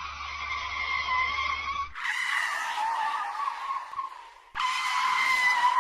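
Car tires screeching in three separate skids, one after another: each a sustained high squeal with overtones, the second starting suddenly about two seconds in and sagging slightly in pitch, the third starting suddenly near the end.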